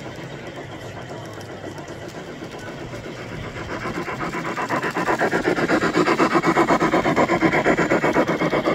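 Garden-scale model train running on the track with a fast, even clatter. The clatter grows louder about four to five seconds in and then holds steady.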